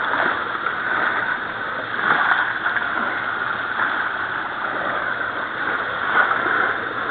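Water lapping and splashing against a boat's hull in the shallows, a steady wash with no engine tone.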